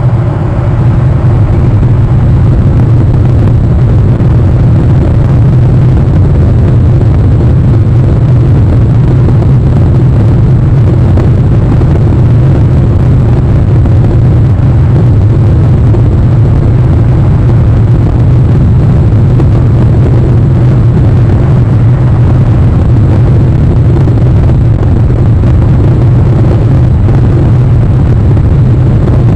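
A loud, steady low rumble from wind on the outdoor webcam's microphone, with no separate sounds standing out.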